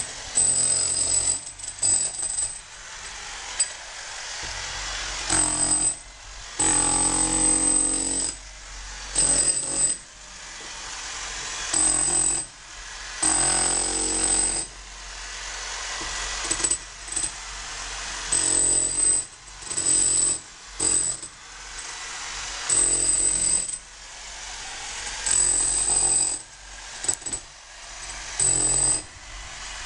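Electric demolition hammer chiselling into a cracked masonry wall to open out the crack, running in repeated bursts of about a second with short pauses between.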